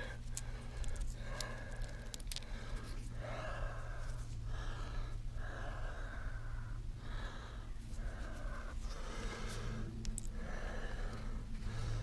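A person breathing heavily close to the microphone, roughly one breath a second, over a low steady hum.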